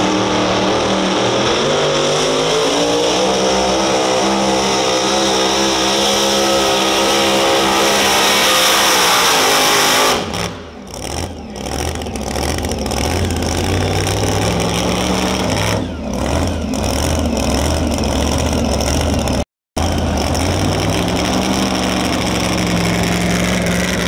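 Supercharged engine of a super modified two-wheel-drive pulling truck at full throttle dragging a sled, its pitch climbing steadily for about ten seconds. Then the throttle comes off and the engine drops to a lower, uneven note with dips in loudness, broken by a brief dropout a few seconds before the end.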